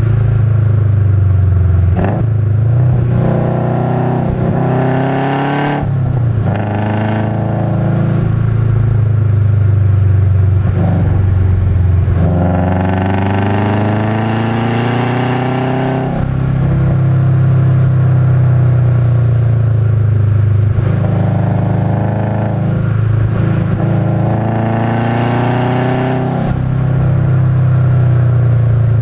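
Turbocharged 2005 Subaru Legacy GT engine, heard from inside the cabin, pulling hard in repeated bursts. The pitch climbs in long rising sweeps about three, twelve and twenty-one seconds in, easing off between them as the car lifts for corners.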